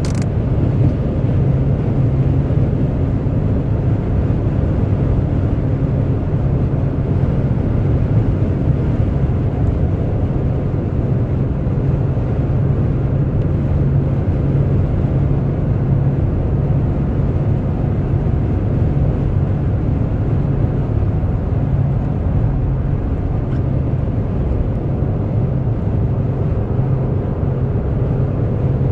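Steady road noise inside a car's cabin at highway speed: an even, constant low rumble of the tyres and engine.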